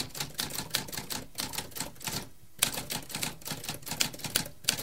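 Typewriter keys clacking in a fast, uneven run of about five strokes a second, with a short pause about halfway through.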